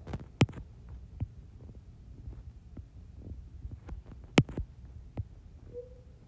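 A few sharp taps on an iPad's glass screen as boxes are drawn around the terms, the loudest about half a second and about four and a half seconds in, over a low steady hum.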